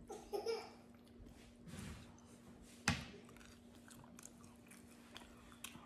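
A person chewing and biting into crisp homemade roti, with one sharp crunch about three seconds in.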